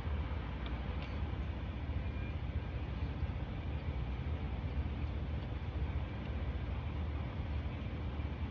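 A steady low hum over a light even hiss, with a couple of faint light clicks about a second in.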